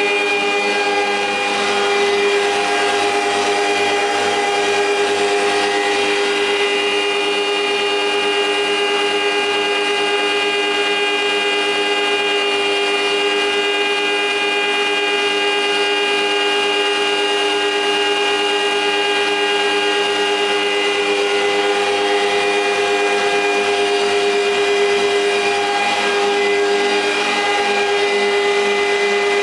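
Kupfermühle four-sided planer (moulder) running steadily, its motors and cutterheads spinning with a continuous hum of several steady tones over a broad rushing noise.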